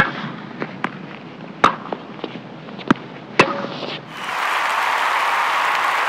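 End-logo sound effect: several sharp cracks over a crackling hiss, then about four seconds in a steady rushing noise takes over.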